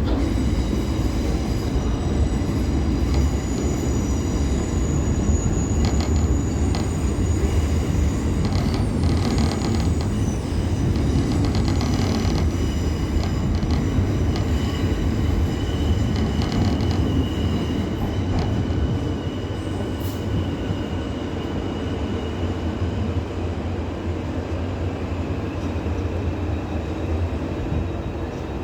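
Class 465 Networker electric multiple unit moving through the station with a steady low rumble. Its wheels squeal thinly on the rails, with runs of clicks over rail joints, and the sound eases slightly in the latter part.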